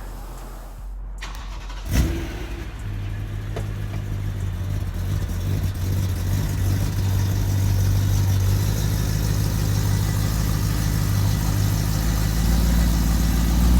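BMW E93 M3's 4.0-litre V8 with a catless X-pipe and the stock rear muffler starting about two seconds in, then idling with a steady low exhaust rumble that grows slightly louder.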